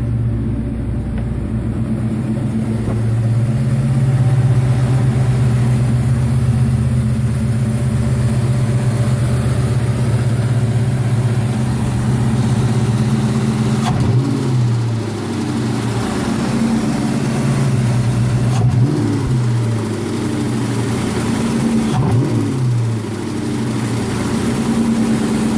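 1998 Ford Mustang GT's 4.6-litre V8 idling, with a noise that the owner can't place as either an exhaust leak or a noisy lifter. Three short blips of the throttle come in the second half, the engine note rising and falling back to idle each time.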